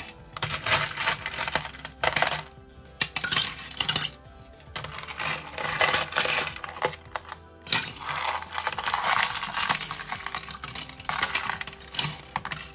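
Metal nail implements (cuticle nippers, pushers, clippers) clinking and clattering against each other as they are dropped and poured from a plastic container into soapy water in a sink. The clatter comes in several bursts with short pauses between them.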